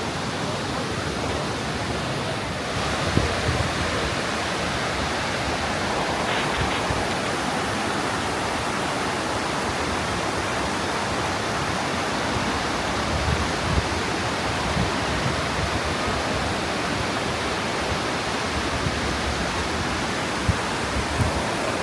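Steady rushing of a large waterfall, a loud, even wash of falling water, with a few brief low bumps over it.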